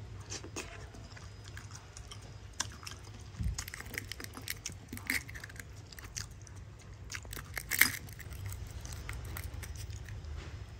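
Shell of a boiled fertilised duck egg (balut) being broken away by hand while a metal spoon scrapes and scoops inside it: scattered small cracks and clicks, the sharpest about eight seconds in.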